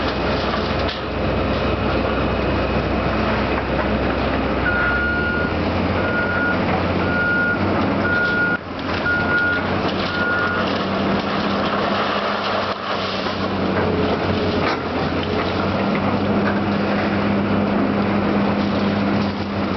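Heavy diesel demolition machinery running steadily; its engine note rises about a quarter of the way in. A reversing alarm beeps six times, about a second apart, through the middle.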